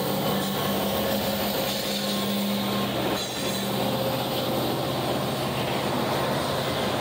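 A Union Pacific freight train passing close by. A diesel locomotive's engine hums low and steady through the first three and a half seconds or so. Then covered hopper cars roll past with a steady rumble of wheels on rail.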